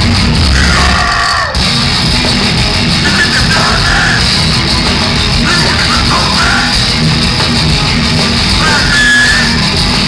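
A hardcore metal band playing live: heavy distorted guitars and drums, with a vocalist yelling in short bursts about four times.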